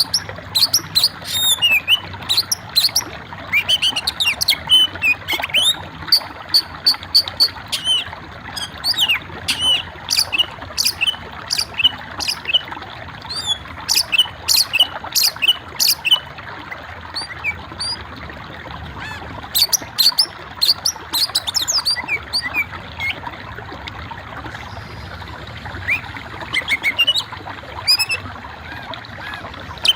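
Songbird chirping in rapid runs of short, sharp high notes, some sweeping downward, with a couple of brief pauses between the runs.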